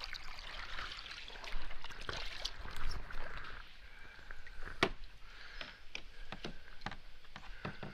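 Water sloshing and trickling around a kayak hull, with scattered small clicks and knocks from handling; one sharper knock about five seconds in.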